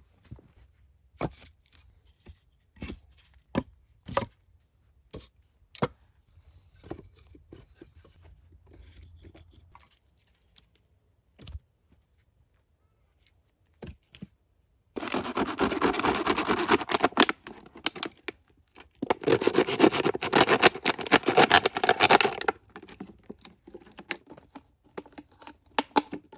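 A run of sharp knocks, then two long spells of loud tearing and crackling, each a few seconds long, near the middle and latter part.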